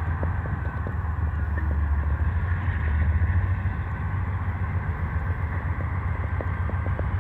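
Diesel freight locomotive running under load as it shoves a train up to the dock: a steady low engine drone, with faint scattered clicks that come more often near the end.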